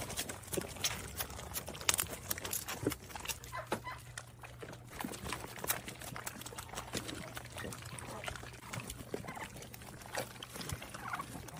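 Goats chewing ripe tomatoes: irregular wet smacking and squelching mouth sounds, over a steady low hum.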